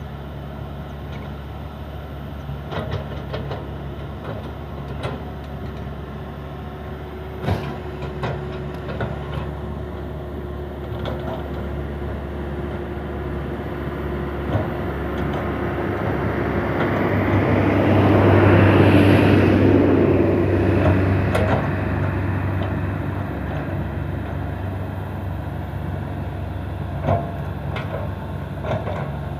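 Excavator diesel engine running steadily, with scattered sharp metallic clanks; in the middle it grows louder and harsher for a few seconds, then settles back.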